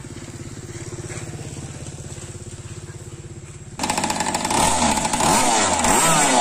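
Zenoah G2D two-stroke gas engine of an RC boat idling steadily, then, a little before four seconds in, revved hard, its pitch rising and falling several times in quick blips.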